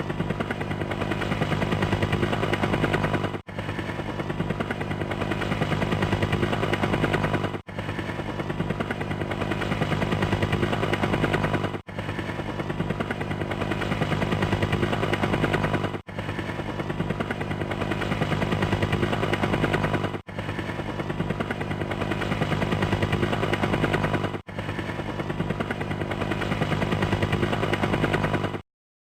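Helicopter rotor blades chopping rapidly over a steady engine hum. It is a short recording looped about every four seconds, with a brief break between repeats, and it stops shortly before the end.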